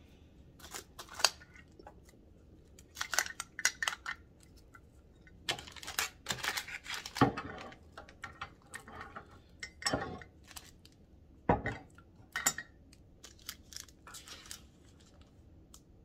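Scattered clicks, knocks and rustles as a ceramic mug and small packaged treats are handled and set on a wooden tiered tray.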